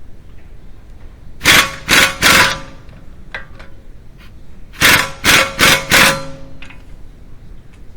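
Impact wrench rattling in short bursts on the BMW E90's front wheel hub bolts: three bursts, a pause, then four more, with metallic ringing.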